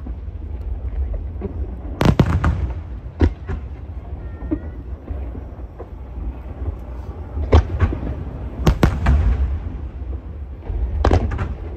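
Aerial fireworks shells bursting overhead: single booms about two seconds in and again a little later, then clusters of sharp bangs past the middle and near the end, over a steady low rumble from the display.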